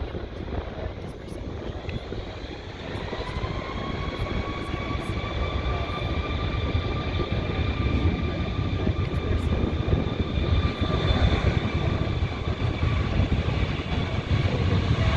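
Boeing 737 jet engines spooling up for takeoff: a whine rises from about three seconds in and settles into a steady high whine over a rumble that grows louder.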